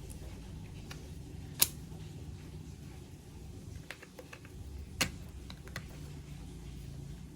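Small hard clicks and taps of plastic and metal parts being handled during a laptop RAM upgrade, with two sharp louder clicks, one about a second and a half in and one about five seconds in, over a low steady hum.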